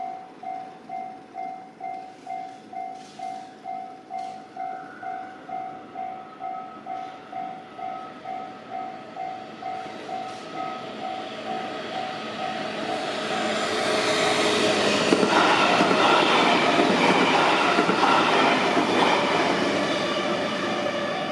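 Railway level-crossing warning bell ringing in a steady pulse, about two rings a second. Partway through, a passing train builds up to the loudest sound, drowning out the bell, then eases off near the end.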